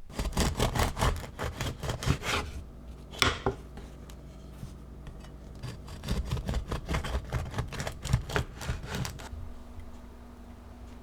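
Quick, even scraping or cutting strokes, about five a second, in two runs, with a single sharp knock between them.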